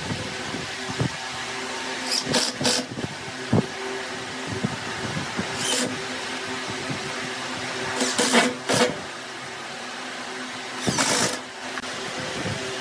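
Wood lathe motor humming steadily, with scattered light knocks and four short bursts of hissing, scraping noise.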